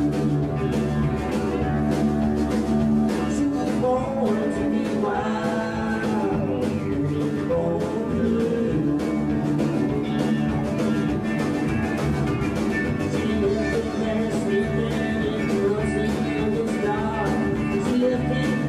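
Live country band playing at a steady tempo: drum kit keeping the beat under acoustic and electric guitars and bass.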